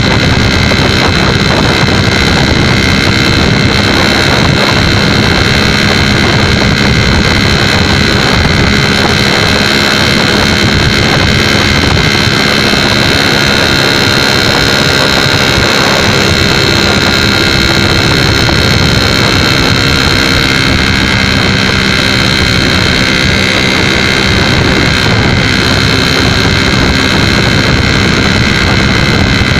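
Suzuki RC80 two-stroke motorcycle engine running steadily at cruising speed, with wind rushing over the microphone.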